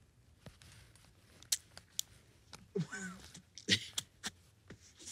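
Scattered sharp clicks and cloth rustles from hands working at a heavy wool coat. About three seconds in there is a brief pitched vocal sound that bends up and down, such as a short laugh or grunt.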